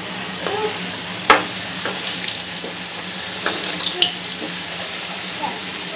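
Potato cubes frying in oil in a kadai, a steady sizzle, while a metal slotted spoon stirs them and clinks against the pan a few times, most sharply about a second in.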